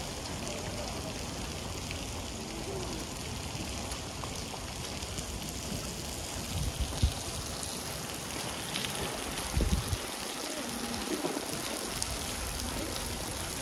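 Steady hiss and patter of falling wet snow, with a few low thumps around the middle.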